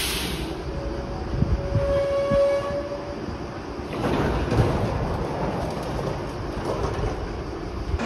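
Athens Metro Line 1 electric train at an open-air platform. A short burst of air hiss at the very start, then a steady pitched warning tone of about two seconds with two dull thumps under it. From about four seconds in, the train's motors and wheels on the rails run steadily as it moves off.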